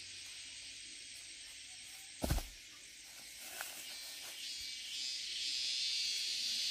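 Steady high-pitched insect hiss, growing louder near the end, with one loud sharp thump a little over two seconds in.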